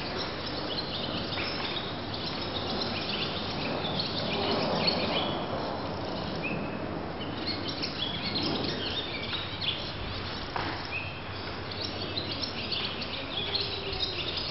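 Small birds chirping and twittering in many short, overlapping calls, over a steady low hum.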